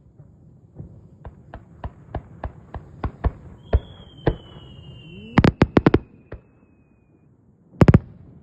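Fireworks exploding: a run of sharp single bangs about three a second, then a long whistle falling slightly in pitch over about three seconds, a rapid cluster of bangs midway, and a last quick cluster of bangs near the end.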